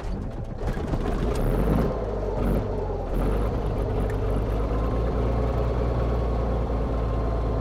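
Hot start of a Beechcraft A36 Bonanza's Big Bore Continental six-cylinder engine, heard from inside the cabin. The engine catches quickly after cranking, runs a little unevenly for a couple of seconds, then settles into a steady idle about three seconds in.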